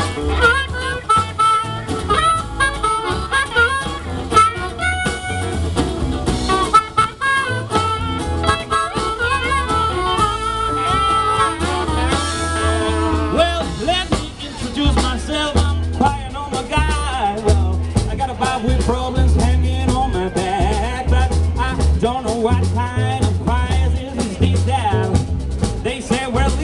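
Live blues band playing: drum kit and upright bass under electric and acoustic guitars, with harmonica and some singing on top.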